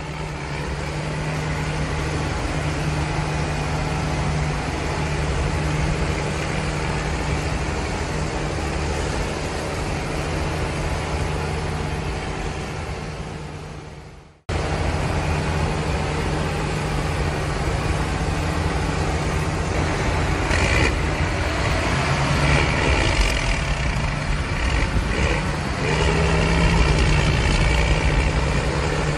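A tractor engine running steadily. It fades out about halfway through, then cuts back in abruptly and runs on, a little louder toward the end.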